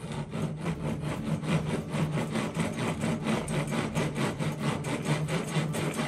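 A round file rasping rapidly back and forth in a hole in a wooden door, about five strokes a second, filing the hole wider to fit a door lock's key and handle.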